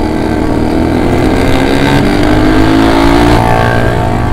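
Motorcycle engine accelerating, its pitch rising steadily for about three and a half seconds before falling away, over wind and tyre noise on a wet road.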